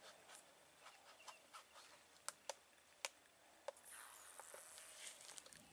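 Near silence: faint outdoor background with a handful of small, sharp clicks around the middle and a faint high hiss near the end.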